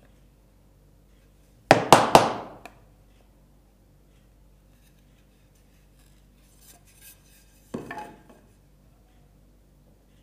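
Sharp clicks and knocks from a wooden marking gauge being adjusted, with a quick run of three about two seconds in and a softer pair near the eighth second.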